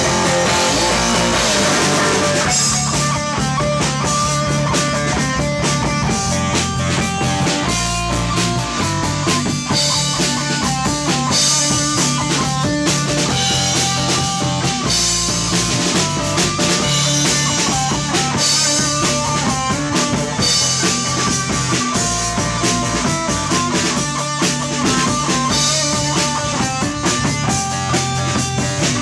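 A rock band playing live in a rehearsal room: a drum kit, an electric guitar and an electric bass, without pause.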